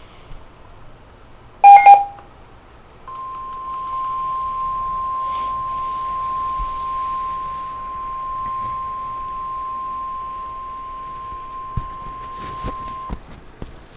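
NOAA Weather Radio warning alarm tone: a single steady 1050 Hz tone held for about ten seconds and then cut off, announcing a severe thunderstorm warning. It is preceded, about two seconds in, by a brief, very loud burst of tones.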